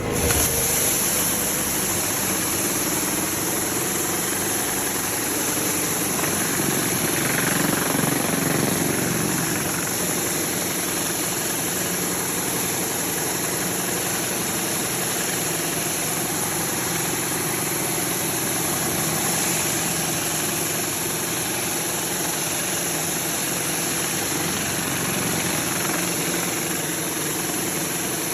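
A 4.7 gpm gas pressure washer's engine running under load, with the steady hiss of high-pressure water spraying from a 36-inch Whisper Wash Maxima surface cleaner onto concrete. The spray comes on abruptly at the very start.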